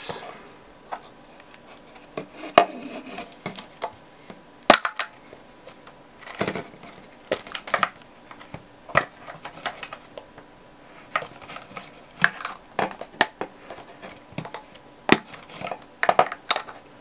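Plastic cycling water bottle being handled: irregular sharp clicks and short scrapes as its clear dust cap and nozzle are worked open and shut and the bottle is turned in the hands.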